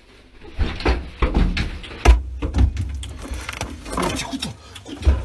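Refrigerator door opened, then a string of knocks, thumps and rustling as a cat bites and tugs at a zucchini.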